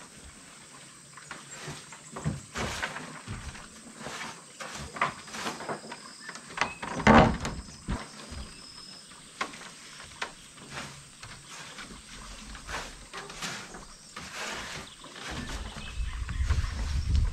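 A handmade wooden plank door on metal hinges being swung shut and opened again, with scattered wooden knocks and clicks as it is handled; the loudest knock comes about seven seconds in as it closes.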